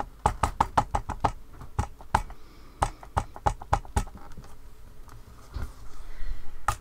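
Ink pad tapped over and over onto a clear acrylic stamp in a stamping platform's lid: light plastic taps, about four a second, for the first four seconds. Then the platform's hinged lid is swung shut and pressed down, with a sharp click near the end.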